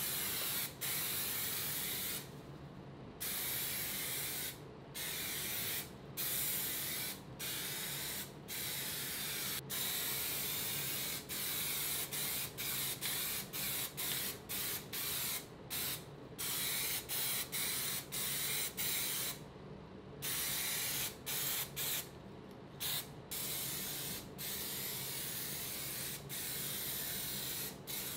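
Aerosol spray-paint can hissing in repeated sprays, broken by frequent brief pauses as the nozzle is released and pressed again, with longer pauses around two to three seconds in and near twenty seconds in.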